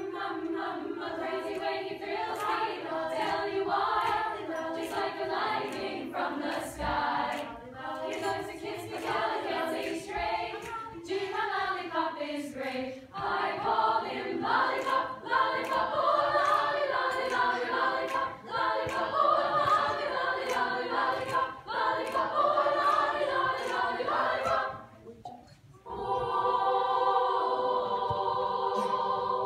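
Girls' choir singing a cappella in close harmony, with sharp clicks marking the beat. Near the end the singing drops out for a moment, then the choir holds one long chord.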